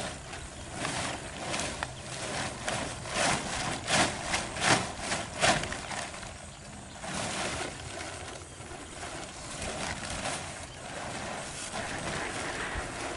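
Plastic tarp rustling and crackling as it is handled and shaken against a horse, with a run of louder crackles between about three and six seconds in.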